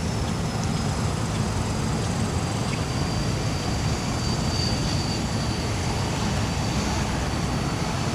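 Steady rumbling background noise, with a faint high whine that slowly falls in pitch.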